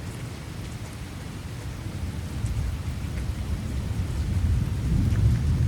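Heavy rain falling steadily, with a low rumble of thunder that builds and grows louder over the second half.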